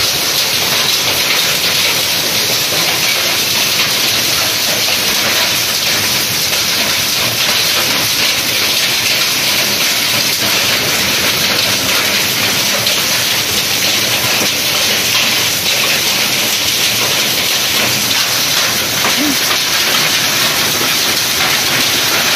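Heavy rain mixed with hail pelting down onto a concrete yard, a dense steady hiss.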